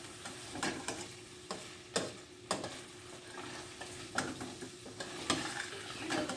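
Minced meat sizzling as it fries in a pan while being stirred, with a utensil knocking and scraping against the pan every second or so.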